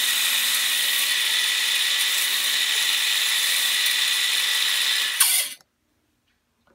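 Benchtop belt sander running with a steady whine and belt hiss while a small oak shim is sanded on the belt. The sound cuts off abruptly about five and a half seconds in.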